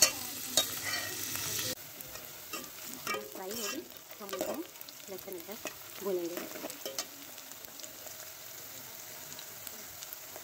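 Sliced onions sizzling in hot oil in a steel pot, stirred with a metal spoon that scrapes and clinks against the pot in the first couple of seconds. After about two seconds the sizzle carries on more quietly.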